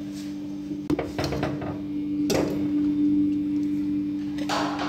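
A steady low hum with a few short clatters of kitchenware, about one, two and a half, and four and a half seconds in.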